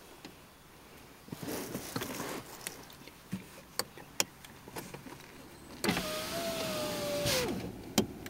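A car's electric window motor whining steadily for about a second and a half, dropping in pitch as it stops, followed by a sharp clunk. Before it come scattered rustles and light knocks.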